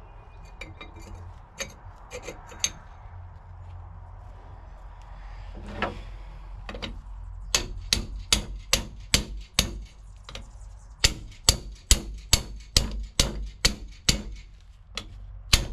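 Hammer striking to drive a new pinion bearing race down into a heavy-duty rear differential housing, seating it fully. A few scattered knocks, then runs of sharp metallic strikes at about three a second with brief pauses between runs.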